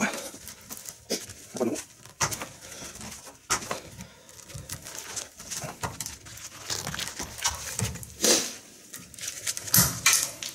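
Knipex electrician's multi-purpose pliers cutting into a thick five-core 25 mm² power cable clamped in a vise: irregular crunches, clicks and scraping as the cutter jaws are worked through the copper cores with great effort.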